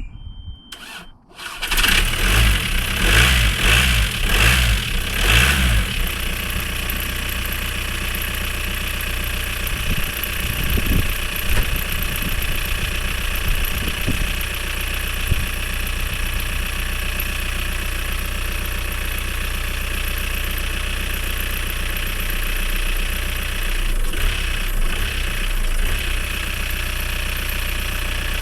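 Mk4 Volkswagen Bora's engine cranking with an even pulse for about four seconds, then firing and settling into a steady idle. It is a first start after months standing unused, on a new battery.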